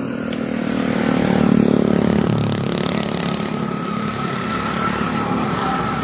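A motor vehicle's engine running close by, growing louder about a second and a half in, then holding steady.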